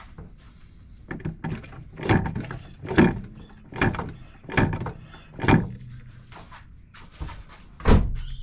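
Holden VZ Commodore SS brake pedal pumped repeatedly, a series of knocks about a second apart with a louder one near the end. It is the brake test after a bleed that has made the brakes worse.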